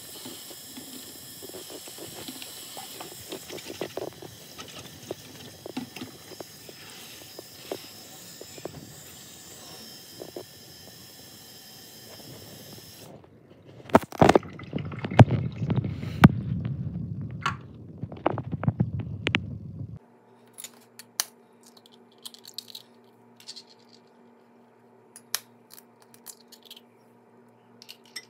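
Kitchen tap water running onto cauliflower florets in a plastic colander in a steel sink, stopping suddenly about halfway through. Then a louder stretch of knocks and clatter as the wet colander is handled, followed by a quieter steady hum with sparse light clicks.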